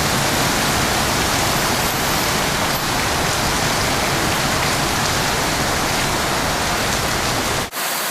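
Heavy monsoon rain bucketing down, a loud steady hiss of rain with a deep rumble under it. Near the end it briefly drops out and comes back with the low rumble gone.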